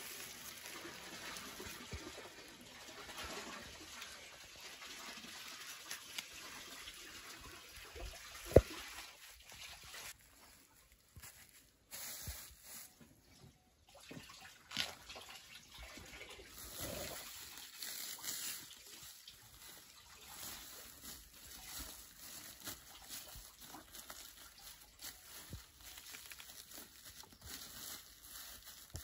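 Faint rustling of a woven plastic sack of wet grated cassava being handled in a wooden trough, with liquid trickling. A single sharp knock comes about eight and a half seconds in.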